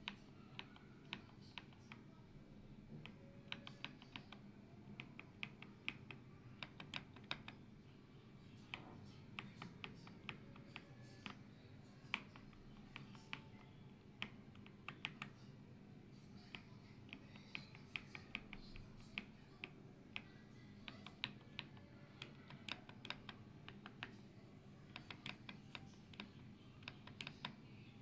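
Typing on an AULA F98 Pro mechanical keyboard with transparent PC keycaps: quick runs of keystrokes broken by short pauses, over a faint steady hum.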